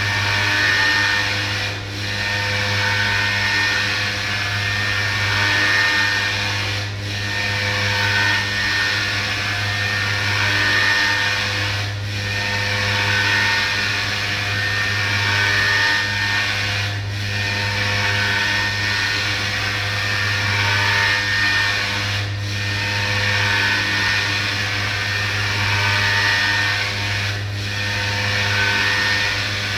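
CNC milling machine's spindle cutting steadily, over a constant low hum, with a brief dip in the cutting noise about every five seconds.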